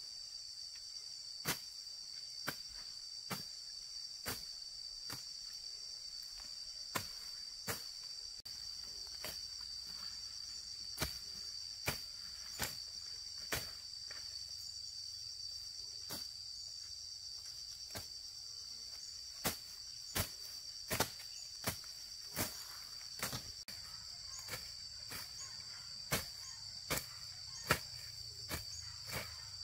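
Insects chirring steadily at a high pitch, with a string of sharp knocks or taps at uneven intervals, more frequent in the last third.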